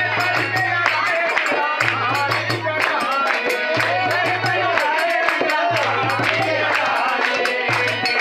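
Live folk devotional song: male voices singing to a harmonium and a dholak barrel drum, with steady rhythmic hand clapping keeping the beat.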